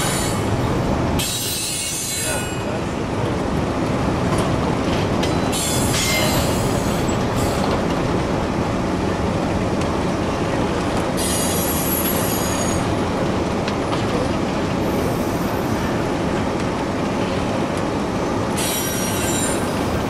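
Intermodal freight train rolling past close by: a steady rumble and clatter of steel wheels on rail. High wheel squeal comes through about eleven seconds in and again near the end.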